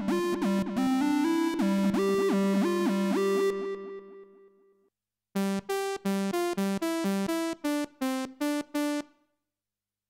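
Cherry Audio DCO-106, a software emulation of the Roland Juno-106 synthesizer, playing its 'Old Square Lead' preset: a lead melody whose notes glide into one another, fading out about four to five seconds in. After a brief gap the 'Pretty Young Lead' preset plays a quick run of short, bright notes that stops about nine seconds in.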